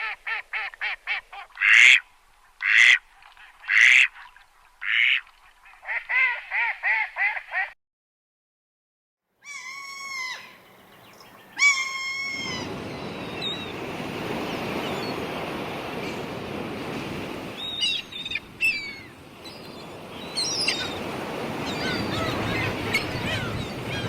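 Ducks quacking in fast runs of short calls, with four louder single calls at about one-second spacing in between. After a brief silence, a different recording of birds calling over a steady rushing background.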